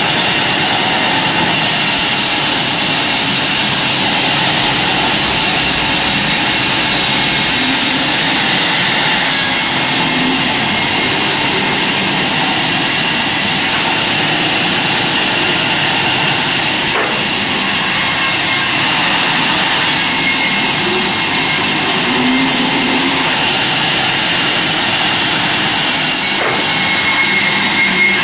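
Large band saw running steadily while a wooden plank is fed through its blade, a continuous even whir of motor and blade in wood, with two faint knocks in the second half.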